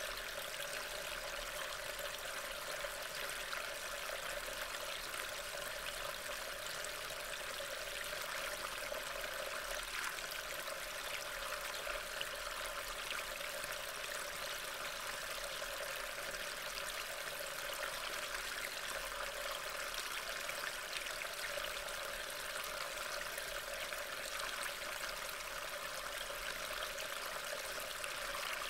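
Steady rain falling: an even hiss with a fine patter of drops that runs on unchanged.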